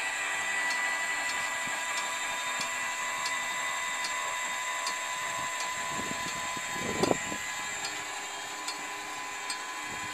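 Small electric motor running with a steady whine, with a light tick about every half second and a single thump about seven seconds in.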